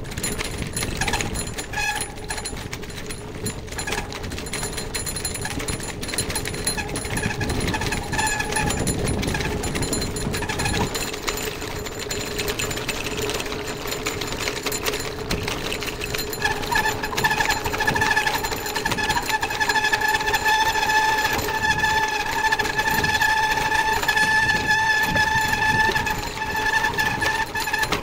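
Bicycle rattling over cobblestones, the wire front basket and frame clattering in a fast, dense chatter. About two-thirds of the way in, a steady high squeal joins the rattle and holds.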